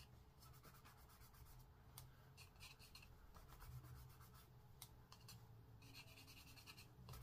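Faint scratching of a pastel pencil stroked quickly back and forth on card, in several short runs with pauses between.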